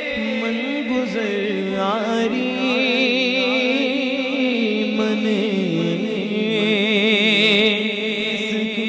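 A man's solo voice singing a naat into a microphone. He draws out long wordless notes between lines and ornaments them with quick wavering turns, most strongly about two and about seven seconds in.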